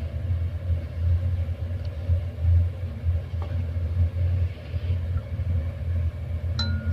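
A steady low background rumble. The last kalimba notes ring out and fade at the start, and near the end a kalimba starts a new run of plucked notes, each higher than the last.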